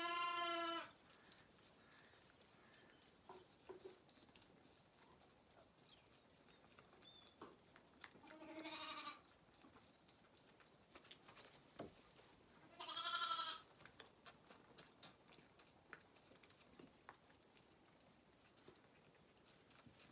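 Zwartbles lambs bleating: three separate bleats, each under a second long, one right at the start, a quieter one about eight seconds in and a loud one about thirteen seconds in. Faint rustles and clicks are heard between them.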